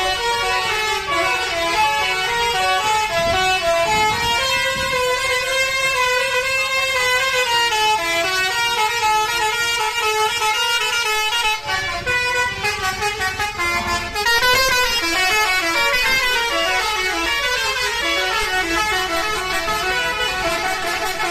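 A bus's basuri telolet horn, a multi-tone musical air horn, playing a fast melody, its notes stepping up and down almost without a break.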